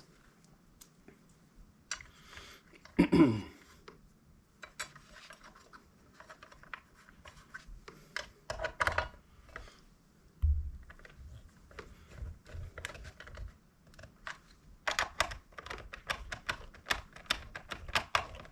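Small clicks and taps of parts being handled and fitted as the cover goes back onto a mechanical seatbelt chime module, with a dense run of quick clicks near the end. About three seconds in comes the loudest sound, brief and falling in pitch.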